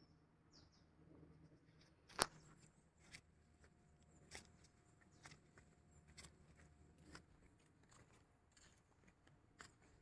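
Faint, sharp clicks and crunches about once a second, the loudest about two seconds in: footsteps on dry, cracked mud, against a near-silent background.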